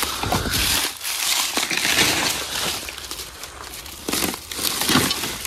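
Rustling and crunching of dry leaves and debris being disturbed, with a few sharp cracks and knocks.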